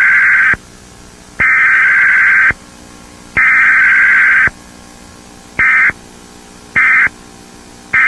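Emergency Alert System (SAME) digital data bursts of a Required Weekly Test. Three header bursts of about a second each, a second apart, are followed by three short end-of-message bursts, with no attention signal between them.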